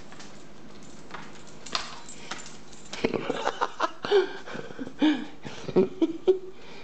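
Dog boots clicking and clattering on a tile floor as the dog walks, with a person laughing in short bursts from about three seconds in.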